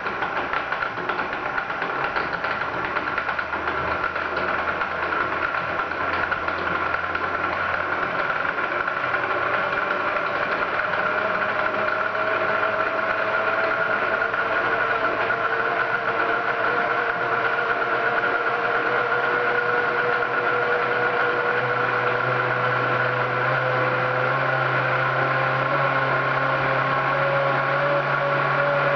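Kenwood Chef A700 stand mixer's electric motor running with the beater turning: a steady whine whose pitch rises slowly as the speed knob is turned up, growing a little louder.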